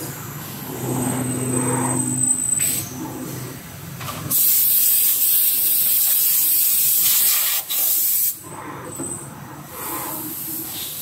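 CNC lathe: a low hum for the first couple of seconds, then a loud, steady hiss of air or spray lasting about four seconds from a little before halfway through.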